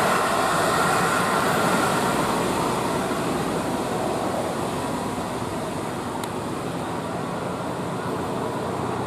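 Tour bus passing on an uphill road, its diesel engine and tyre noise a dense, steady rumble that slowly fades as the bus moves away.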